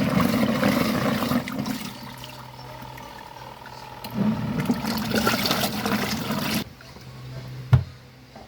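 Portable washing machine churning water with its motor humming, the sloshing easing off and then surging again before cutting off abruptly. A single thump follows near the end.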